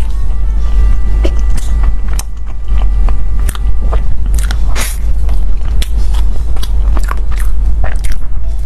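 Close-miked chewing of soft purple rice bread with cream filling: irregular small mouth clicks and smacks, over a steady low hum.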